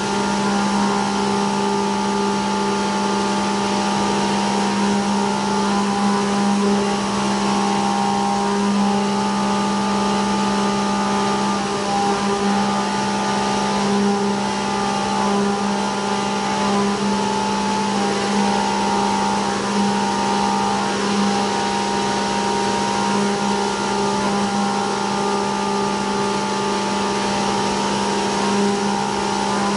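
CNC milling machine cutting a pocket with an end mill under flood coolant: a steady cutting hum with a constant low tone and higher whines, over an even hiss from the coolant spray and flying chips.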